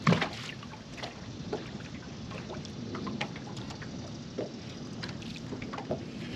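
Water lapping and trickling against a small fishing boat, with scattered light knocks and clicks of gear on the boat and one sharper knock right at the start.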